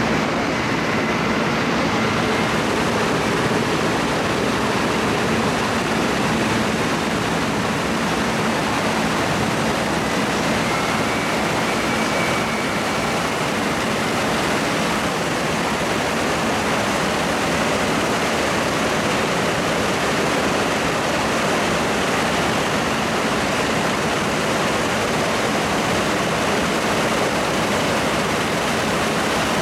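Lockheed Super Constellation's Wright R-3350 radial piston engines running steadily on the ground with propellers turning, a dense, even wall of engine and propeller noise over a steady low hum.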